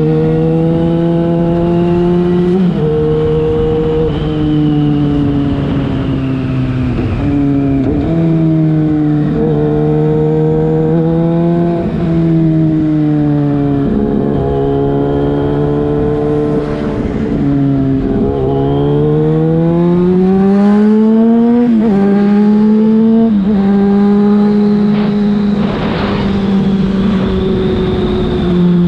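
Yamaha FZ6 inline-four engine through a LeoVince aftermarket exhaust while riding. The engine note holds steady, then jumps up or down in pitch every few seconds as the throttle and gears change, with a longer rising pull about eighteen seconds in that drops off sharply a few seconds later.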